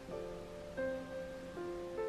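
Soft instrumental background music: a melody of held notes that change every half second or so.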